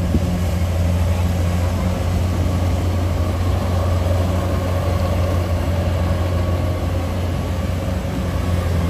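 Rice combine harvester running steadily as it drives across the field, its engine giving a constant low drone.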